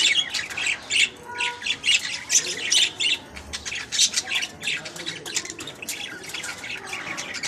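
Lovebirds giving a rapid run of short, high-pitched squawks and chirps, several calls a second.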